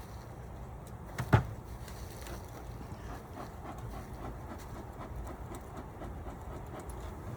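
A single sharp knock about a second in, over a steady low rumble.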